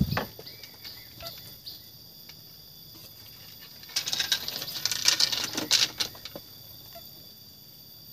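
Insects chirping steadily in the background. About halfway through there are roughly two seconds of crackling rustle.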